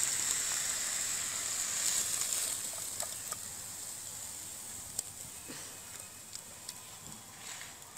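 Radish fry sizzling in a hot metal wok, a steady high hiss that slowly fades as the food is tipped out onto a plate, with a few light clicks.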